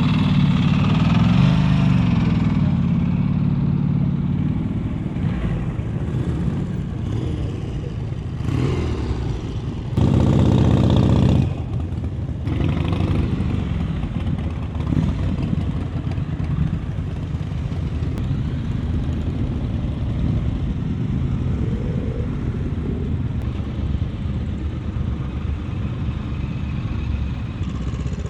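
Several motorcycle engines running as bikes ride in and idle, with pitch rising and falling in the first few seconds. About ten seconds in, one engine is much louder for a second and a half, then cuts off abruptly.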